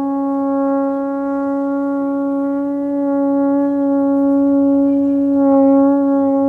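Conch shell (shankh) blown in one long held note, steady in pitch with a slight waver near the end, used as a lung-capacity breathing exercise.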